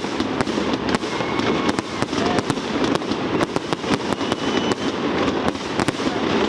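Fireworks display: a dense run of sharp bangs and crackles from shells bursting, over a continuous rumble, with a few thin whistling tones.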